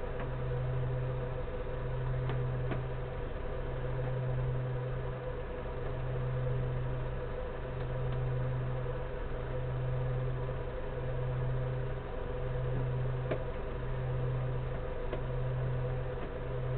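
Steady machine hum: a strong low tone broken by brief dips every second or two, over a fainter steady drone, with a few faint clicks.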